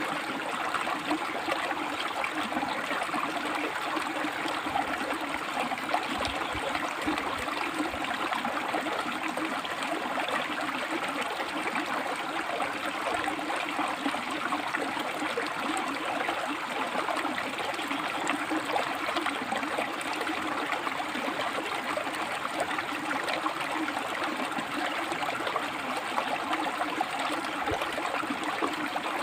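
River water running over and between rocks, a steady rushing and babbling flow.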